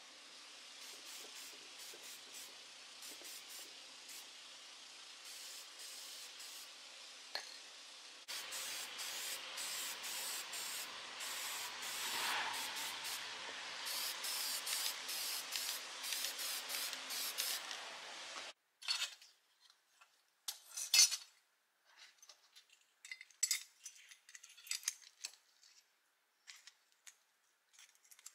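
Aerosol spray paint can hissing, faint at first, then louder from about eight seconds in and in quick repeated bursts as small metal parts are painted. It stops suddenly, and then small metal parts click and clink as a spring and rod assembly is fitted together by hand, with one sharp clink standing out.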